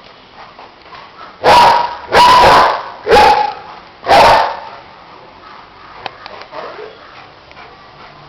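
German shepherd barking close by: four loud, deep barks in a row, the second one drawn out a little longer.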